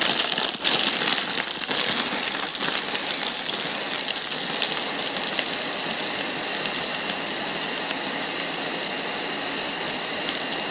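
Ninja Pulse blender motor running at full speed, its blades crushing ice cubes and frozen cranberries in liquid in the 40-ounce processing bowl. It runs without a break, with uneven clattering of ice in the first few seconds, then settles to a steadier whir as the ice is crushed to slush.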